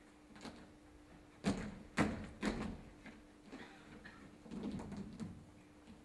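Dancers' shoes stamping and scuffing and their bodies dropping onto a stage floor: a string of irregular thumps and scrapes, the loudest two about a second and a half and two seconds in, over a faint steady hum.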